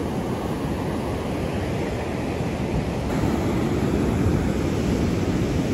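Ocean surf breaking and washing up a sandy beach: a steady rush of noise that grows a little louder about three seconds in.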